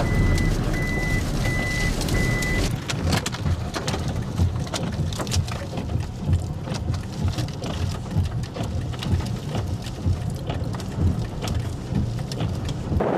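A vehicle's reversing beeper sounds about twice a second and stops about two and a half seconds in; then rain pelts the vehicle in a dense patter of hits over a strong low rumble of wind and engine.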